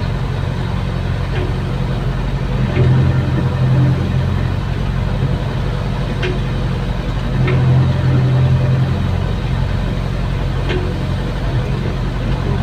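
Diesel engine of a CAT hydraulic excavator running steadily, heard from inside the operator's cab, swelling louder twice as the boom and bucket work the pit. A few faint clicks sound over it.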